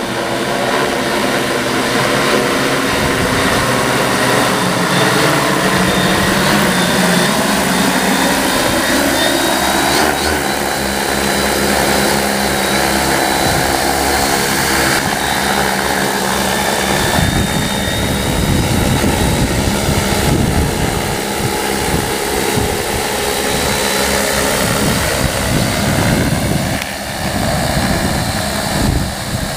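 Large six-rotor agricultural spraying drone with 75 cm (30-inch) propellers in flight, its rotors giving a loud, steady whirring drone of many layered tones that bend slightly in pitch as it manoeuvres. From about halfway a rougher, uneven low rumble joins in.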